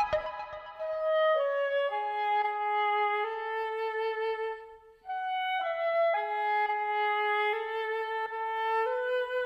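Background music: a slow melody of long held notes on a bowed-string-like instrument, entering with a quick falling run of notes and pausing briefly about five seconds in.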